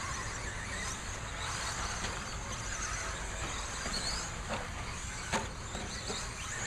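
Electric RC stadium trucks racing: the motors whine up and down in pitch as they accelerate and brake, over the constant noise of the cars on the track. There is one sharp knock a little over five seconds in.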